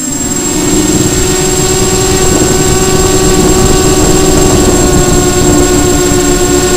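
Racing quadcopter's four Emax 2204 2300kv brushless motors spinning 5045 bullnose props in a steady hover, a buzzing whine holding one pitch over a low rumble, heard from the camera mounted on the quad.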